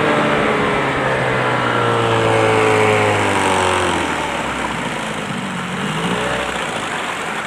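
1988 Evinrude 15 HP two-stroke twin outboard motor throttling down: its pitch falls steadily, drops further about four seconds in, and rises and falls briefly once near six seconds as it settles toward idle.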